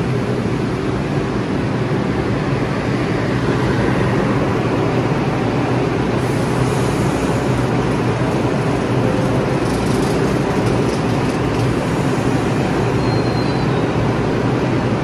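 New York City subway trains in a station: a steady rumble and hum from a train standing at the platform with its doors open. Some higher hiss joins in around the middle.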